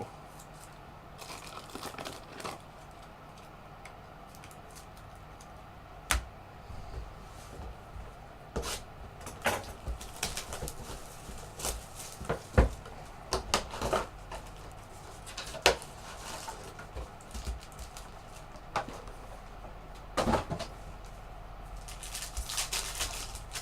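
Trading cards and their packaging being handled: scattered taps, clicks and rustles, denser near the end, over a faint steady low hum.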